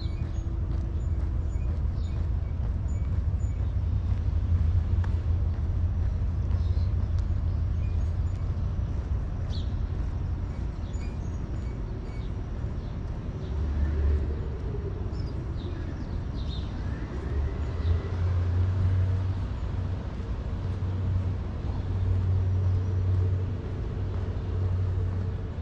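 Outdoor city street ambience: a steady low rumble with a faint vehicle passing around the middle and small high chirps scattered through.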